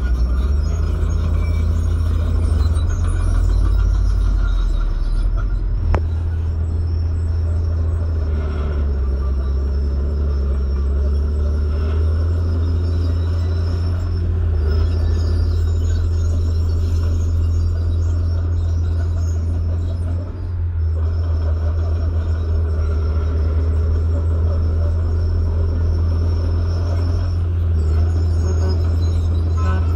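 Heavy diesel engines of a dump truck and a Komatsu bulldozer running under load, a steady deep rumble, with one sharp click about six seconds in.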